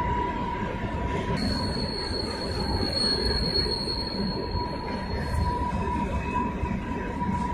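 Freight train rolling by with a low rumble and a steady high-pitched wheel squeal. A second, higher squeal joins about a second and a half in and stops a few seconds later.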